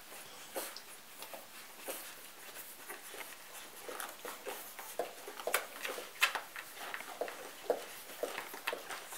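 Golden retriever puppies suckling at their mother as she nurses and licks them: irregular soft wet clicks and smacks, busier and louder from about four seconds in.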